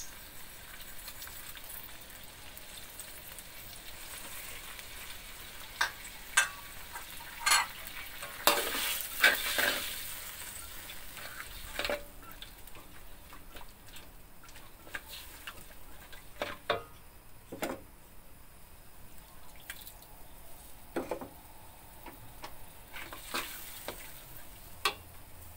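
Metal spatula stirring and scraping around a metal wok of simmering sauce and vegetables, with a steady sizzling hiss underneath, as seasoning is stirred in. A run of loud scrapes and knocks comes about six to ten seconds in, then sparser taps.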